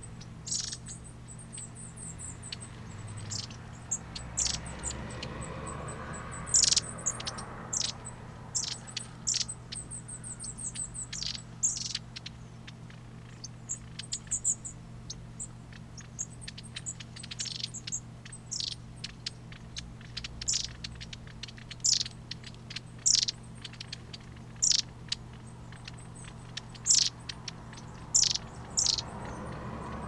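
Long-tailed tits calling: many short, very high-pitched notes, some in quick runs, over a steady low hum.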